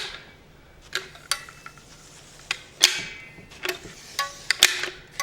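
Caulking gun being worked to run a bead of adhesive caulk: irregular sharp metal clicks and clinks from the trigger and plunger rod, about eight in all, some with a short ring.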